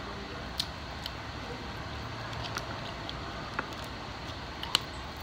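A handful of short, sharp clicks of mussel shells being handled with long fingernails over a steady background hiss, the loudest click near the end.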